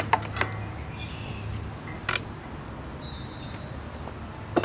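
A few short sharp clicks and clinks of metal brake hardware and tools being handled: a quick cluster at the start, one about two seconds in and one near the end, over a low steady hum.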